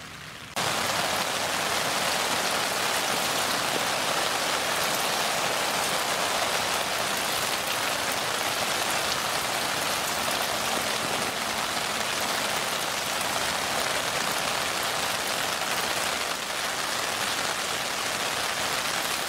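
Heavy rain falling steadily in a downpour, an even, dense hiss that cuts in abruptly about half a second in.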